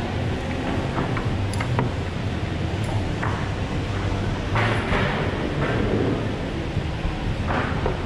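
Steady indoor background hum and noise, with a few light metallic clinks about one to two seconds in and short rustling scrapes near the middle and near the end as the climber moves on the holds close to the microphone.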